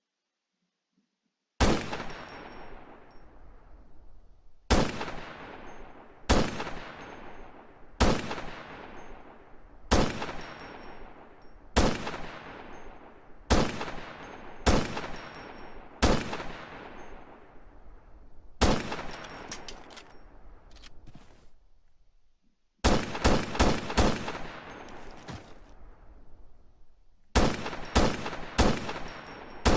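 PSL-54C semi-automatic rifle in 7.62×54mmR firing. After a short silence come about ten single shots, spaced roughly one and a half to two and a half seconds apart, each with a long echoing tail. Two quick runs of several rapid shots follow, one about three quarters of the way through and another near the end.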